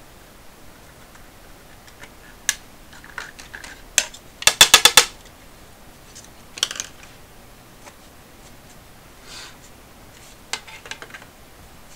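The hard plastic back case of a Casio fx-7400G Plus calculator knocks and clatters against a tabletop as it is handled. The loudest part is a quick run of about eight sharp rattling clicks about four and a half seconds in, followed by a few scattered clicks.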